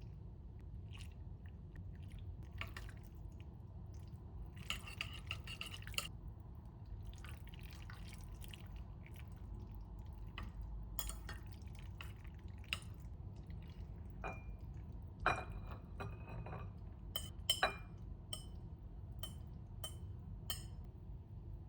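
Kitchen handling sounds: scattered light clicks and taps of dishes and containers being set down and moved, with a few ringing clinks of glass or ceramic in the second half.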